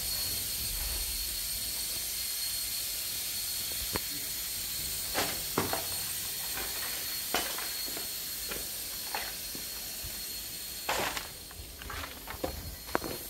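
Steady hiss with a faint high whine, broken by scattered light clicks and knocks; the hiss drops off about eleven seconds in.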